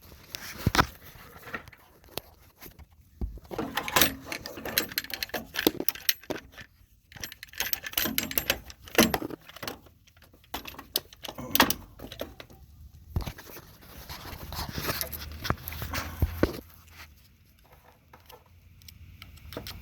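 Irregular small metallic clicks and scrapes of a pick working the front shaft seal of an automotive A/C compressor, sliding the seal in and out.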